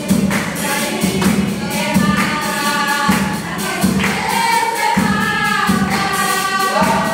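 A small group of women singing a gospel hymn together in unison, with steady rhythmic hand clapping and a strummed acoustic guitar.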